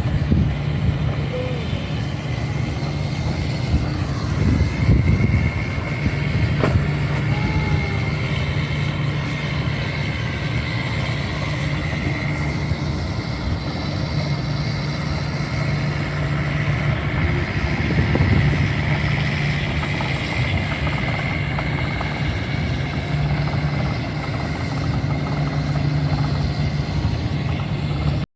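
Makita DRC200Z robotic vacuum cleaner running over wood decking: a steady motor hum with a high whine that wavers slightly in pitch.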